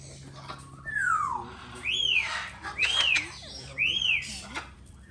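A parrot whistling: one falling whistle, then three quick whistles that rise and fall, about a second apart.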